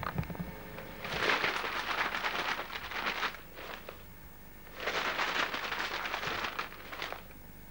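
Two bursts of rustling and crackling, each about two seconds long, with a short quieter gap between them.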